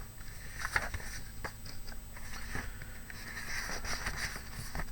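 Sheets of 8x8 patterned craft paper being leafed through and handled, rustling and crinkling with scattered small clicks and scrapes.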